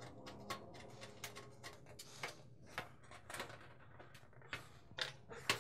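Screws being driven back into an oven's back panel: faint, irregular small clicks and ticks of tool and screw against metal, about one or two a second, with a louder pair near the end.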